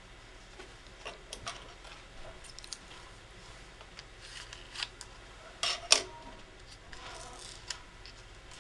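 Light clicks, scrapes and rustles of a small product box being handled and opened by hand, with two louder scrapes about six seconds in.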